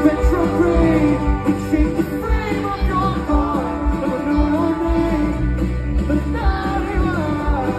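A live band playing a song: a man singing over strummed acoustic and electric guitars with a low drum beat, the vocal phrases coming in and out.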